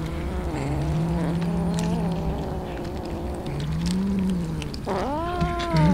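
Domestic cats vocalizing over food: a low, drawn-out moaning growl that wavers between two pitches, then a loud rising-and-falling meow about five seconds in.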